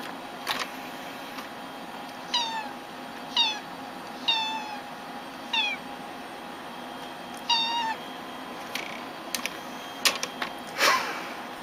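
Domestic cat giving five short, high, slightly falling meows a second or so apart, then a few sharp knocks and a brief brushing sound near the end as it paws at the computer tower.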